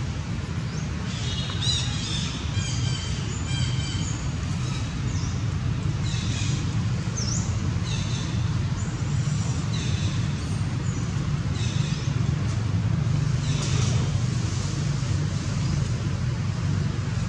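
Birds chirping and calling with short high notes, several times a second in places, over a steady low rumble.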